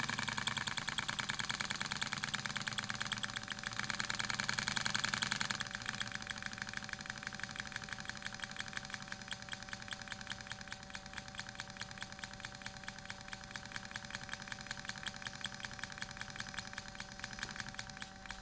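Twin-cylinder model steam engine running on compressed air, its exhaust puffing in a rapid, even beat. It goes a little quieter about five seconds in.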